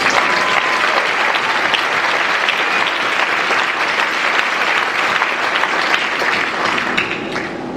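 Audience applauding: dense, steady clapping that starts at once and tapers off near the end.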